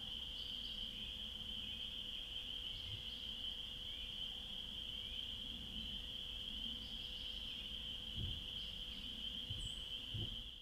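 Steady, high-pitched evening chorus of calling animals, with a few faint bird chirps over it.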